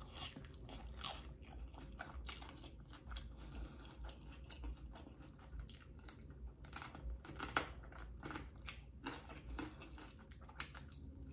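Quiet chewing and biting of a fried chicken wing: a steady run of small crunches and mouth clicks, with a few sharper crunches about seven to eight seconds in and again near the end.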